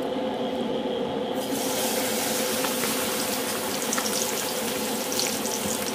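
A batter-coated whole chicken frying in hot oil in a wok. A duller steady hiss gives way about a second and a half in to a bright, steady sizzle that holds.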